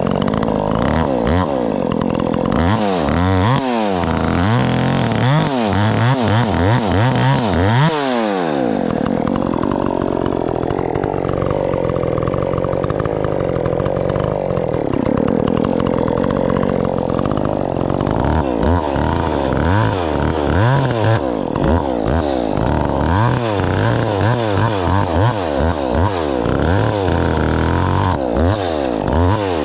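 Chainsaw cutting black locust, its engine pitch rising and falling again and again as the throttle is worked, with a steadier stretch in the middle.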